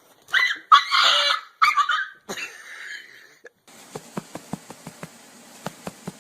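A dog whining and yowling in four or five loud, high cries over about three seconds. After that come a series of faint, irregular taps.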